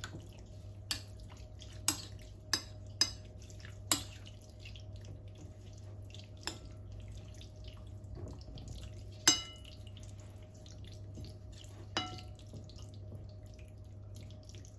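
Scattered clinks and taps against a ceramic bowl as diced raw chicken is mixed with marinade, the loudest about nine seconds in, over a steady low hum.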